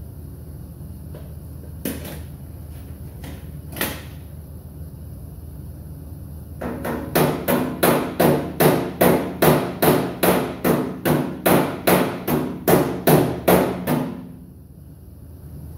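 Hammer striking the sheet-metal body of an M151A1 jeep: two single knocks, then a steady run of blows, about three a second, starting about six and a half seconds in and stopping about a second and a half before the end, each with a short metallic ring.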